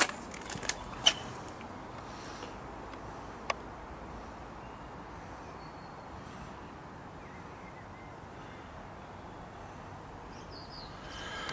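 Steady, even noise from a descending Airbus A320-232 airliner. A few sharp clicks come in the first second and another about three and a half seconds in. Faint bird chirps come near the middle and near the end.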